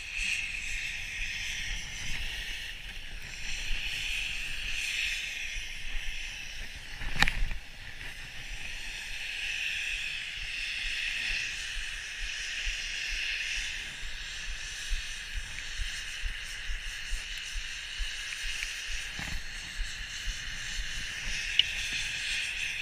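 Skis hissing and scraping over packed snow during a downhill run, swelling and fading with each turn, with wind rumbling on the camera microphone. A single sharp knock comes about seven seconds in.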